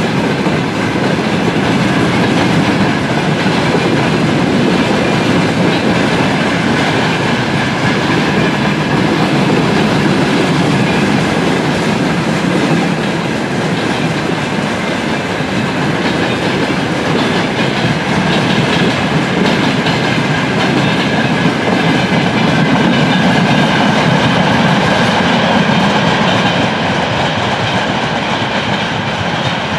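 Long train of rail tank wagons rolling past, a steady rush of wheel-on-rail noise that eases a little near the end as the last wagons draw away.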